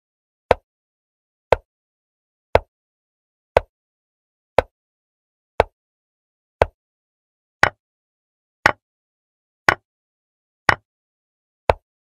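Chess program's piece-move click sound effects, one short sharp click about every second as the moves play out, a dozen in all. The clicks from about eight seconds in are brighter, each with a quick double tap.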